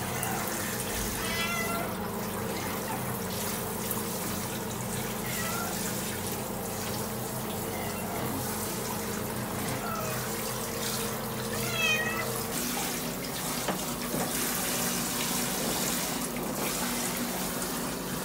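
Water spraying from a handheld shower head onto a cat being bathed. The cat meows repeatedly, in short wavering calls, with the loudest about twelve seconds in.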